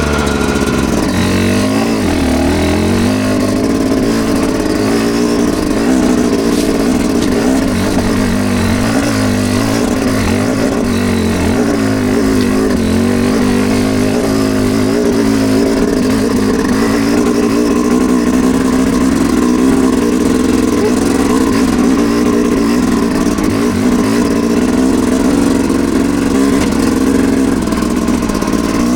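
Off-road vehicle's engine running hard under load, its pitch rising and falling repeatedly with the throttle as it climbs a steep trail hill.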